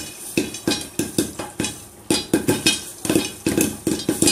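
Popcorn kernels popping inside a covered steel pot on the stove, knocking against the pot and its steel plate lid. The pops come irregularly, several a second.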